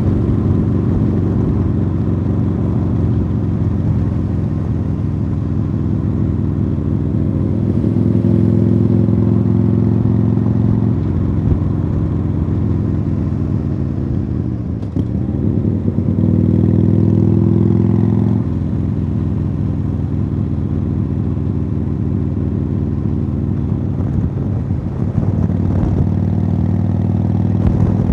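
Harley-Davidson Sportster Iron 883's air-cooled V-twin running through Khrome Werks Tapered 3 aftermarket exhausts under riding load. The throttle rises and eases off several times, and the engine note dips briefly and picks up again about halfway through.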